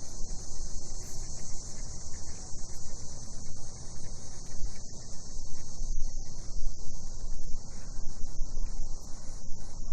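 Night chorus of cicadas, a steady high-pitched buzz, over a low rumble.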